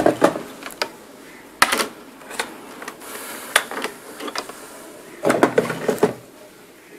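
Knocks and rattles of a computer motherboard being handled and shifted around on a workbench. They come in several short clusters of clicks, with the longest run of clatter near the end.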